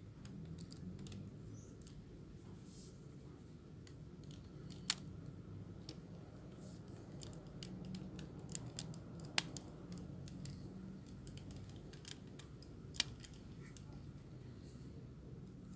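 Plastic joints and panels of a Transformers MP-39 Sunstreaker figure clicking and snapping as it is transformed by hand: a run of small clicks with three louder snaps, about four seconds apart. A steady low hum runs underneath.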